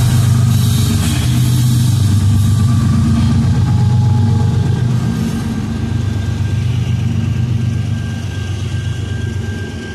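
Diesel freight locomotive of a CSX train passing close with its engine running, followed by tank cars rolling by. The sound eases after about five seconds as the locomotive moves off.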